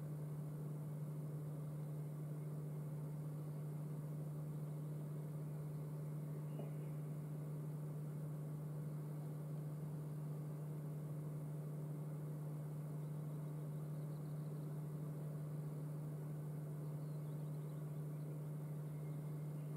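A steady low hum with fainter overtones above it, over a faint hiss.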